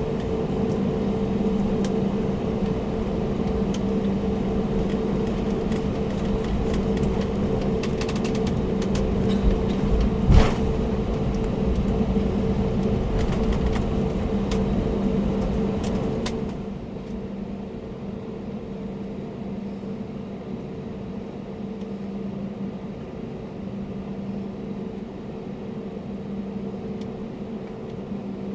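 Steady engine hum with a low rumble heard from inside a vehicle, with one knock about ten seconds in. The noise drops noticeably quieter, losing its hiss, about sixteen seconds in.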